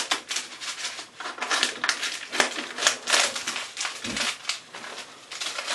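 Mylar bag and the foil seed packets inside crinkling and crackling as they are pulled out and handled, in quick, irregular rustles.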